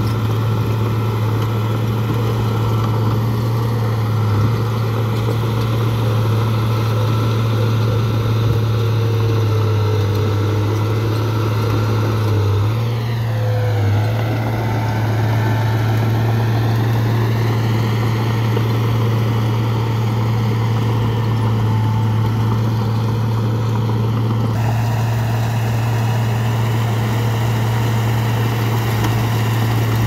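Diesel engine of heavy construction machinery running steadily with a deep, even hum. About halfway through, a falling-then-rising sweep passes through the higher sound.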